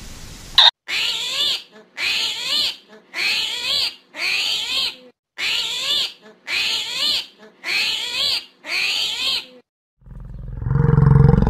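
Animal calls: a short cry with a wavering pitch repeated eight times, about once a second, each one the same. Near the end comes a deep roar that grows louder.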